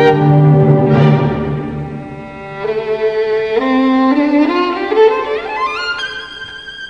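Bowed-string music, violin-like: a held low chord, then from about two and a half seconds in a single melody line climbs step by step to a high note that is held and fades near the end.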